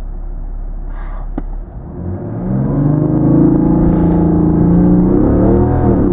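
BMW 535d's 3.0-litre turbocharged inline-six diesel: a low road rumble gives way, about two and a half seconds in, to hard acceleration with the engine note slowly climbing. Near the end the pitch drops and recovers at an upshift of the 8-speed automatic.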